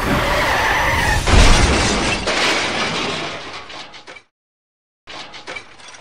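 A loud crashing, rushing noise with a heavy thud about a second and a half in, fading away and cutting off abruptly, followed by a shorter, fainter burst of clattering noise near the end.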